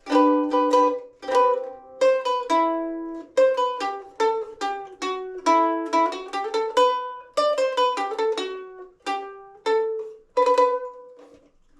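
Homemade redwood ukulele, its soundboard thinned for more volume, played acoustically: strummed chords with a run of single picked notes in the middle, each note ringing out between strokes.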